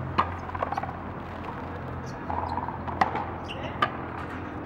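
Sharp cracks of a frontón ball in a racket rally, struck by rackets and smacking off the wall. There is one near the start, then two loud ones about three and four seconds in, over a steady low background hum.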